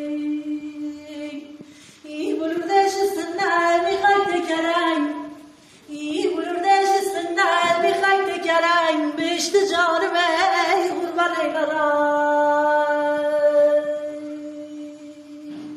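A woman singing unaccompanied in the Qashqai folk style, a single voice. She opens on a long held note, moves into ornamented runs with a quivering pitch, breaks off briefly midway, and ends on a long held note that fades.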